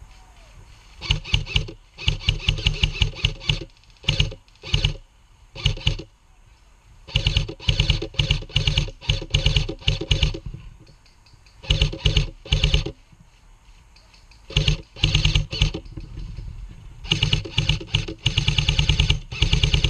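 Airsoft electric gun firing on full auto in repeated bursts, a fast mechanical rattle of shots; about nine bursts, some short and some lasting a few seconds, with short pauses between them.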